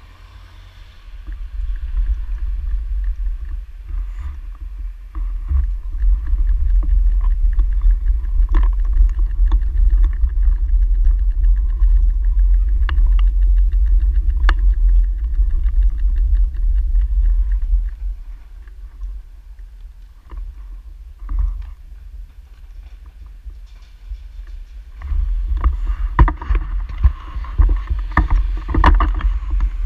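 Wind noise and road rumble on a bicycle-mounted camera's microphone while riding, with a few sharp clicks. It builds over the first few seconds, eases for a while past the middle and grows louder again near the end.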